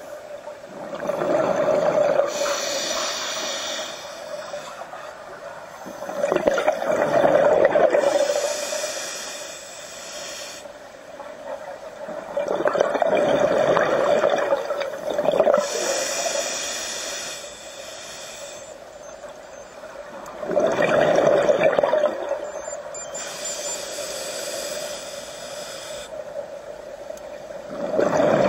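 Scuba diver breathing through a regulator underwater: a hiss on each inhale and a rush of bubbling exhaust on each exhale, about five slow breaths, one every six to seven seconds.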